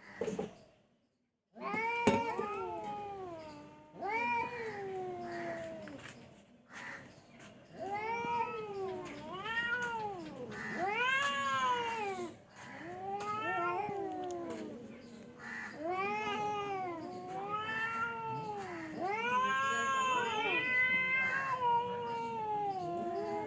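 A cat meowing over and over: more than a dozen drawn-out meows, each rising and then falling in pitch, following one after another from about two seconds in.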